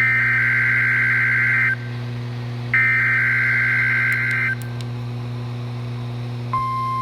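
NOAA Weather Radio Emergency Alert System SAME header for a Required Weekly Test: two bursts of the screeching two-tone digital data signal, each about a second and three-quarters long and a second apart, over a steady low hum. About six and a half seconds in, a steady single-pitch alert tone begins.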